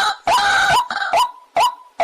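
Waterhen calling: a long harsh, croaking note, then short sharp notes repeating about two and a half times a second.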